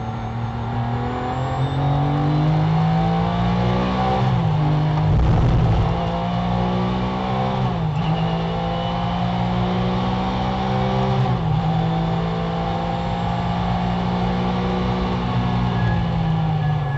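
Porsche GT3's flat-six racing engine heard from inside the car under full acceleration. The revs climb and drop with quick upshifts about four, eight and eleven seconds in, then hold high and steady. A low rumble comes about five seconds in.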